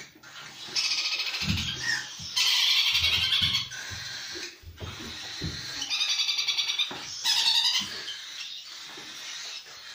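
Young cockatiels giving harsh, rasping begging calls in repeated bouts of about a second each while being hand-fed from a syringe.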